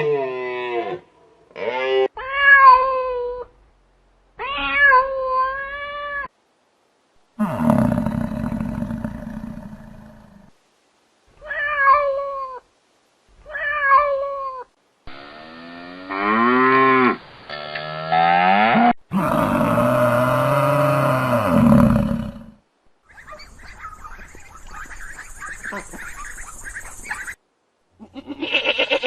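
A string of separate animal calls with silent gaps between them: several short calls that bend up and down in pitch, a longer held call about halfway through, and rougher, noisier calls in the last third.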